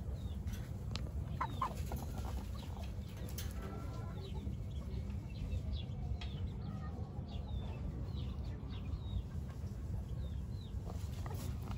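Chickens clucking and giving short high chirps in and around a pen, over a steady low rumble.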